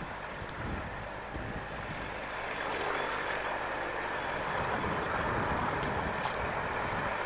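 English Electric Class 37 diesel locomotive running past at a distance with its passenger train: a steady engine drone and rail noise that grow louder about a third of the way in. Wind buffets the microphone near the start.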